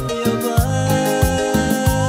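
Upbeat Latin-style music, with a bass line, sustained chords and a steady beat of about two strikes a second.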